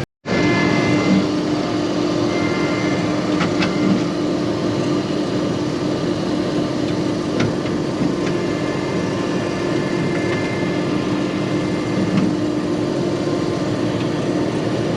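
Case IH combine harvester running steadily while cutting wheat, a constant drone with a steady hum tone, after a brief dropout at the very start.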